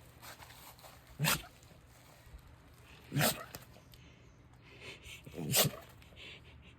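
A dachshund sneezing hard three times, about two seconds apart, each sneeze a short, sharp burst.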